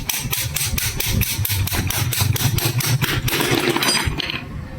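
Quick, even metallic taps or clicks, about five a second, from tool work on a motorcycle gearbox, giving way about three seconds in to a short scraping rustle, over a low steady hum.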